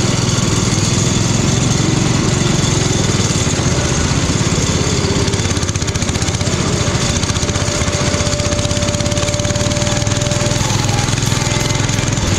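Modified riding lawn mower engine running steadily under load, a rapid, even chatter of engine pulses. A thin whine holds for a few seconds past the middle.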